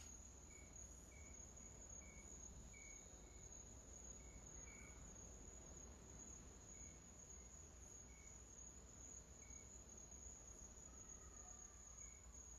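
Faint insect chirping: a steady high trill with short, scattered chirps about once a second, over low background hiss.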